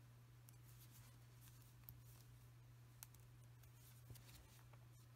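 Near silence: a few faint ticks of metal knitting needles working cotton yarn, over a low steady hum.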